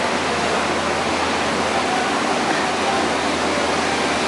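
Steady rush of falling water: an even, constant hiss with no breaks.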